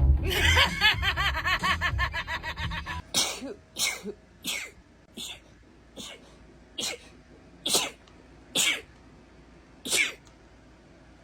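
Plucked-string music for about the first three seconds, then cut off by a woman's rapid sneezing fit: about ten short, separate sneezes less than a second apart, the gaps widening toward the end.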